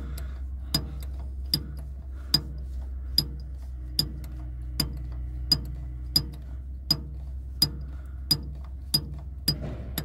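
Ford E350 fuel tank selector valve, its diaphragm popping with a sharp click each time a finger pushes it down and it springs back, about every three-quarters of a second. The valve is freshly lubricated and being worked to free it after sticking. A low steady hum runs underneath.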